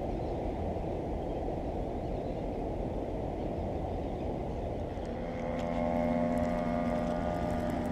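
Wind buffeting the microphone with a steady low rumble. About five seconds in, a steady droning hum joins it, with a few light clicks.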